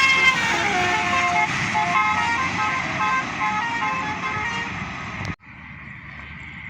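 Basuri telolet bus horn playing a quick melody of short stepped notes over the noise of a bus going by. It cuts off abruptly about five seconds in, leaving quieter road traffic noise.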